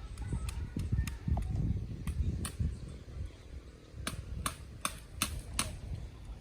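Sharp clicks or taps: a few scattered ones, then five in quick succession about four seconds in, over a low rumble like wind on the microphone.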